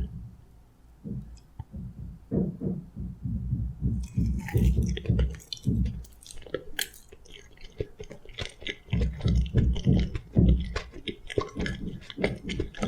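A person chewing food close to the microphone, in rhythmic soft chews with wet mouth clicks and smacks. Nearly quiet at first, the chewing starts about two seconds in and grows busier from about four seconds in.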